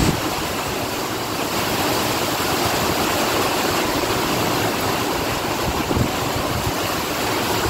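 Heavy rain coming down in a gusty storm wind: a steady rushing hiss, with wind buffeting the microphone as an uneven low rumble.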